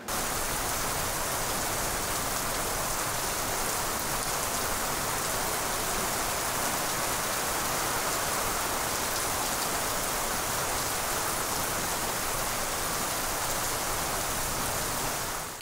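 Heavy rain falling steadily on trees and sodden ground, an even hiss that holds level throughout and fades out at the very end.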